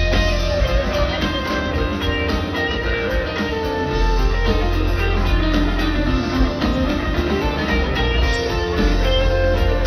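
A live rock band playing through a large outdoor PA, guitar to the fore over heavy bass, heard from within the crowd. It gets a little louder about four seconds in.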